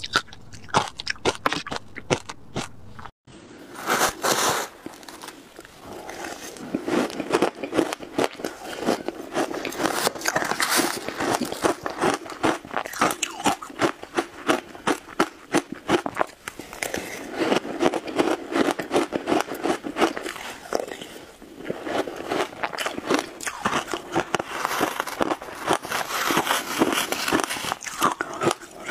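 Close-miked crunching and chewing of ice: frozen ice pieces bitten at first, then, after a sudden break about three seconds in, mouthfuls of shaved ice crunched with dense, rapid crackling.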